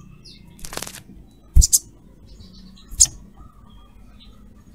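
Caged sunbird giving three short, sharp, high chips, spaced about a second and a half apart, against a quiet background.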